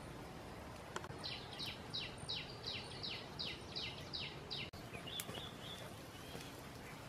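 A songbird singing a run of about ten quick descending whistled notes, about three a second, followed by a few shorter notes, over a steady outdoor background hiss.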